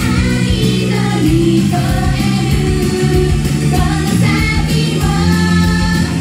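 Japanese female idol group singing a pop song live into handheld microphones, over loud pop backing music with a steady beat through the venue's sound system.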